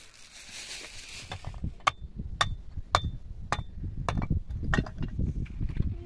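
A series of six sharp strikes, about one every half second, each with a brief metallic ring, after a short rush of hiss at the start.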